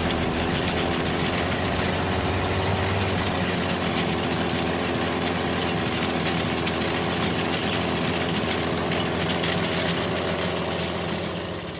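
Hand-built quarter-scale Rolls-Royce Merlin V12 model engine running steadily with an even, continuous engine note. It fades out near the end.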